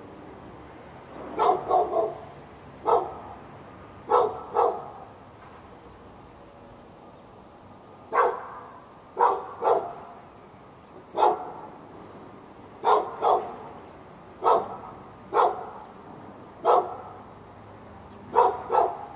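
A dog barking repeatedly at the dog next door, in single barks and quick pairs or threes about a second apart, with a pause of about three seconds near the middle.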